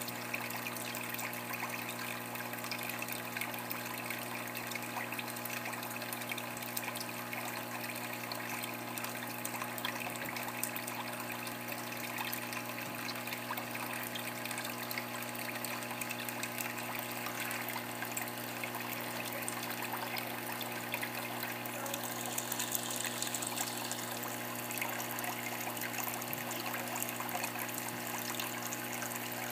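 Aquarium filter running: water trickling and bubbling into the tank over a steady electric hum from its pump.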